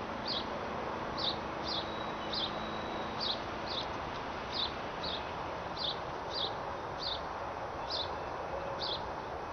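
A small animal gives short, high chirps over and over, roughly one every half second, over a steady outdoor hiss.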